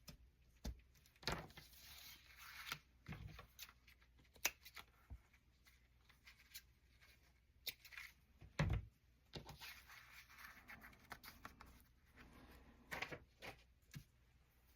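Quiet handling sounds at a craft table: faint rustles and small taps as thin twine is worked into four strands for a paper tag, with one louder knock a little past halfway.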